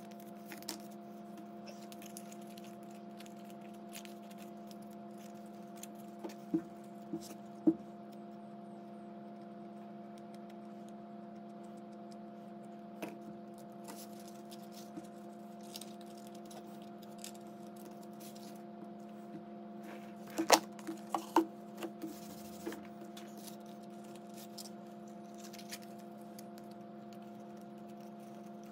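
White cardstock strips being handled and folded by hand: scattered light taps and paper crinkles, with a few sharper clicks about six to eight seconds in and a cluster of them around twenty seconds in, over a steady hum.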